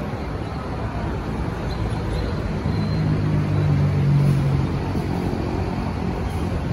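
Scania K230UB city bus's five-cylinder diesel running at the bus stop, a steady low drone that swells louder for about two seconds around the middle, then settles back, under road traffic noise.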